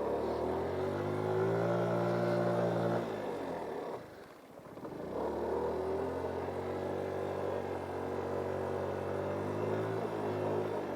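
GY6 50cc scooter's single-cylinder four-stroke engine revving under throttle. It drops away to near idle about four seconds in as the throttle is let off, then revs up again and runs steadily.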